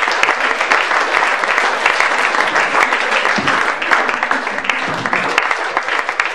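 Audience applauding, many hands clapping without a pause.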